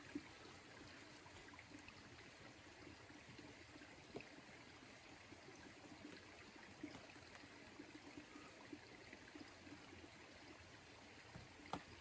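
Near silence: a faint, steady rushing background, with a few soft taps of a climber's hands and shoes on the rock, the clearest near the end.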